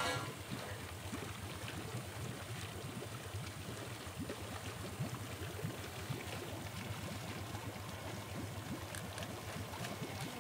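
Water splashing and gurgling in a netted fish pond, over a steady low machine hum.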